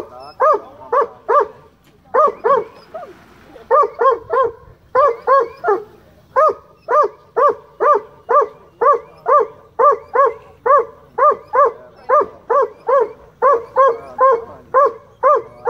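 Black and tan coonhound barking a rapid, steady string of high-pitched barks, about two to three a second, at fish in the water around him, with a brief pause about two seconds in.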